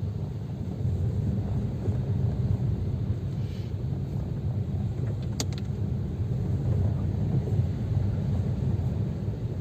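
Steady low rumble of a car driving, heard from inside the cabin, with one short sharp click about five seconds in.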